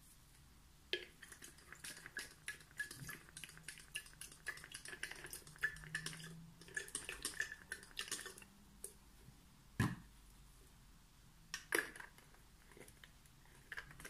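Small glass bottles clinking and tapping against each other and the tabletop as they are handled, with liquid being poured into a glass flask. A rapid run of small clicks and clinks fills most of the first eight seconds, followed by two single louder knocks.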